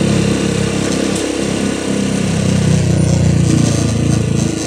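Motorcycle engine running steadily while the bike rides along a city street, heard from on the bike as a continuous low drone.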